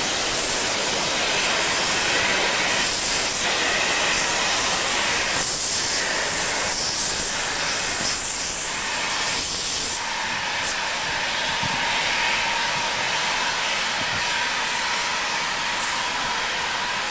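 Steam locomotive W 192 hissing steam, a loud steady hiss that drops suddenly in level about ten seconds in and carries on more quietly.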